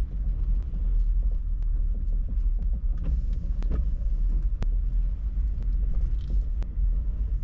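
Car driving slowly, with a steady low road and engine rumble. Sharp ticks of raindrops come every so often.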